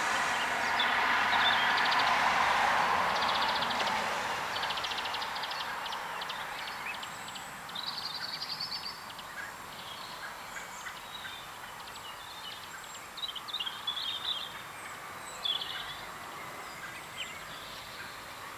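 A passing vehicle's rushing noise swells and fades over the first few seconds, then short high-pitched bird chirps and trills come and go over a quiet outdoor background.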